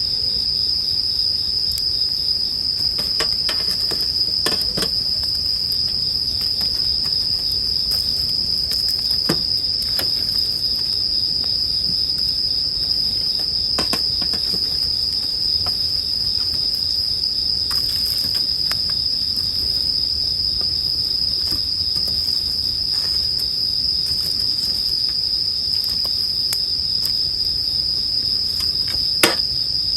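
Bell crickets (suzumushi) singing in a steady, high, continuous chorus, over a wood campfire that crackles and pops now and then, with one sharper pop near the end.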